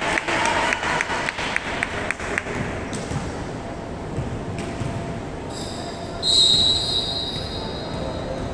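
Hand clapping at about four claps a second dies away over the first couple of seconds in a reverberant gym. About six seconds in, a referee's whistle gives one long, shrill blast, the signal for the next serve.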